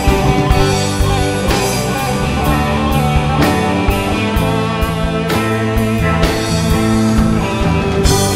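Rock band playing: guitar over a drum kit, with sharp drum or cymbal hits recurring about once a second.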